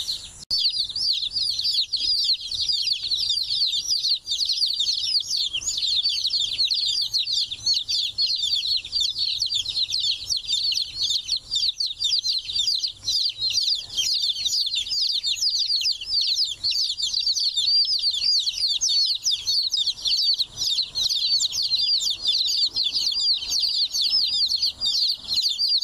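A brood of days-old chicks peeping without pause, many high-pitched chirps overlapping at once.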